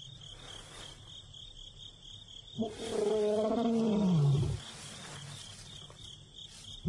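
Male lion calling: one long call of about two seconds, starting about two and a half seconds in and falling steadily in pitch, with the next call just beginning at the end. Insects chirp in a steady pulse behind.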